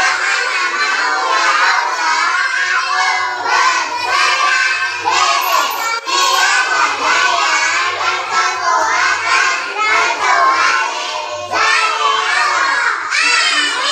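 A group of young children singing together, loud and continuous.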